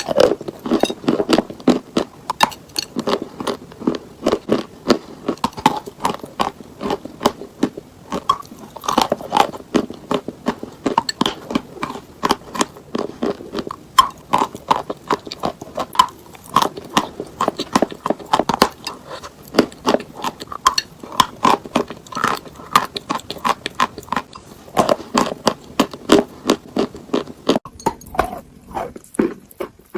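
A person biting and chewing chalk close to the microphone: rapid, continuous crunching.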